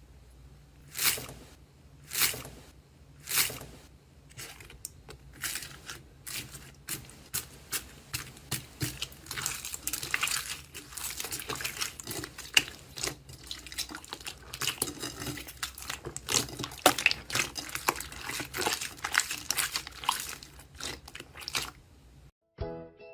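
Crisp crackling and crunching: a few separate strokes about a second apart at first, then a rapid, irregular run of sharp crackles. Music with plucked notes comes in near the end.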